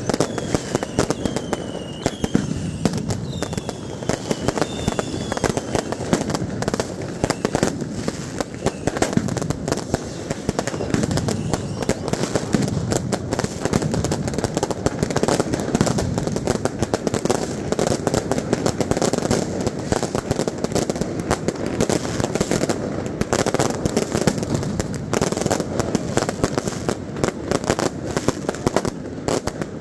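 Fireworks and firecrackers going off without a break, a dense run of bangs and crackles over the noise of a crowd. A few whistling glides sound in the first seconds.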